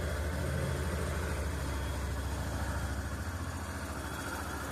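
Yamaha Fazer 250 single-cylinder engine idling steadily, with a faint, thin, high whistle over it. The owner cannot find the cause of the whistle.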